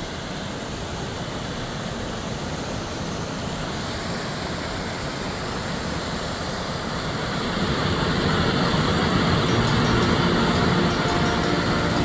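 Steady rushing of a waterfall, growing louder about two-thirds of the way through. Music with held notes comes in near the end.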